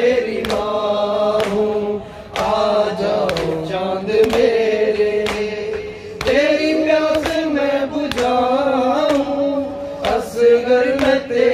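A man singing a noha, an Urdu Shia mourning lament, into a microphone, holding long wavering notes. Sharp thumps about once a second keep time under the singing.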